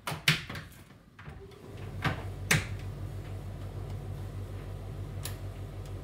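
Clicks and knocks of a kitchen cabinet door being offered up and clipped onto its concealed hinges, the sharpest click just after the start and a few more spread through. From about two seconds in, a steady low hum runs underneath.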